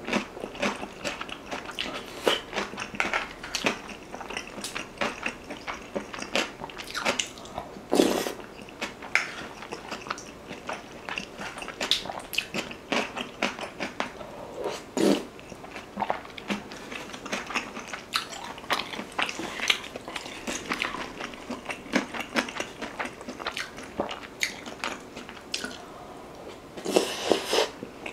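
Close-miked chewing of beef-rib soup with rice: a steady stream of wet mouth clicks, smacks and slurps, with a few louder knocks. Near the end a wooden spoon works in the earthenware pot.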